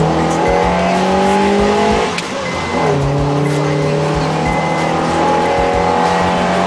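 2009 Honda Accord with a custom dual exhaust and Injen intake accelerating, heard from inside the cabin: the engine note climbs steadily, drops at an upshift about two and a half seconds in, then climbs again.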